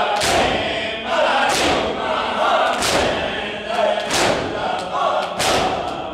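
Crowd of men chanting a noha in unison while beating their chests (matam) together, five heavy, sharp slaps landing in time about every 1.3 seconds over the chant.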